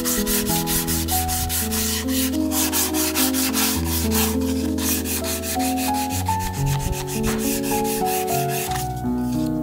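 Sandpaper rubbed by hand over a cherry-wood hand mirror's curved edge, in quick, even strokes that stop shortly before the end, over background music.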